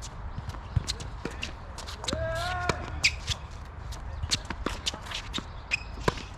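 Tennis play: sharp racket strikes and ball bounces among footsteps on the court, with a short squeal lasting about half a second about two seconds in.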